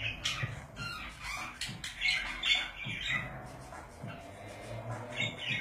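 Pet budgerigars chirping and squawking in quick irregular bursts.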